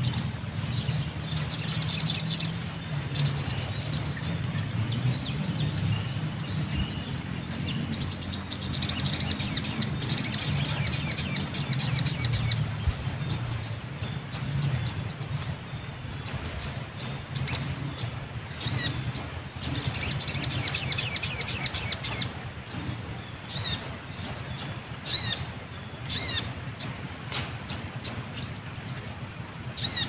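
Sogon (sunbird) calls: fast, high chattering trills in three bouts, then a run of short, sharp chirps over the last several seconds.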